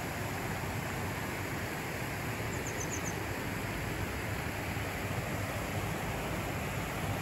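Shallow upper Vistula, swollen and muddy after rain, running over a stony bed: a steady rush of flowing water. About two and a half seconds in, a quick run of five faint high chirps.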